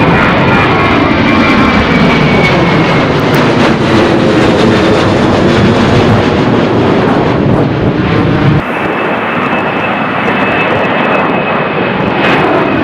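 Jet airliner engines at takeoff power passing close overhead: loud engine noise with a thin, steady high whine and pitches that slowly fall as the aircraft goes by. About two-thirds of the way through the sound cuts abruptly to another jet taking off, with the same high whine.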